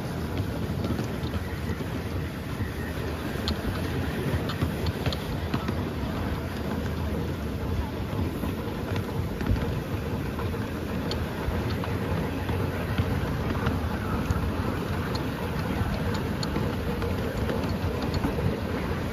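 Exmoor-built miniature steam locomotive running along the track, heard from just behind the footplate: a steady rumble and hiss from the loco and its wheels on the rails, with scattered light clicks.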